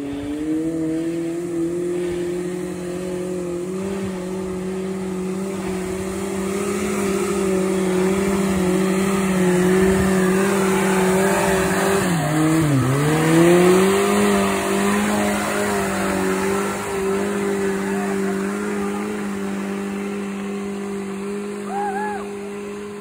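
Heavily modified Suzuki Samurai's engine held at high revs under load, a steady drone with a slight waver. About halfway through, the revs drop sharply and climb straight back.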